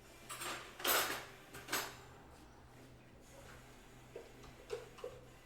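Plate and kitchen utensils clattering and scraping: three quick bursts in the first two seconds, the middle one loudest, then a few light knocks near the end.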